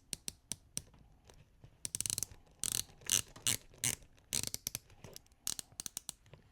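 Dive-watch bezel on a San Martin Black Bay 58 homage being turned click by click: loud, assertive clicks from a straight leaf-type spring snapping into notches in the back of the bezel, in quick runs with short pauses.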